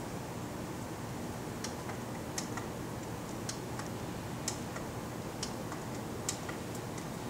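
Light, irregular ticking clicks, about one or two a second, over a steady low background hum.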